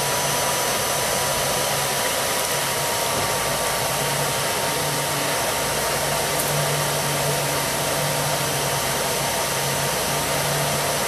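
Hair dryer blowing air through a pipe into a charcoal brake-drum forge: a steady rushing whir with a thin, even whine.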